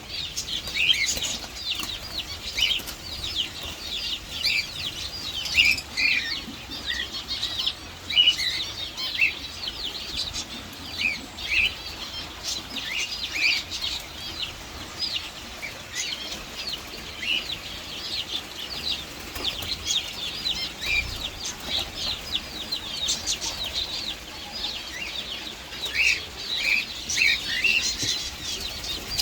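A flock of small birds chirping nonstop, many short high chirps overlapping in a dense chatter.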